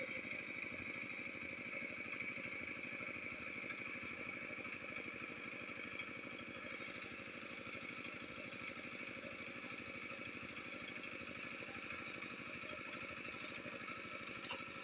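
Small engine running steadily at a fast, even putter, with a steady high whine over it.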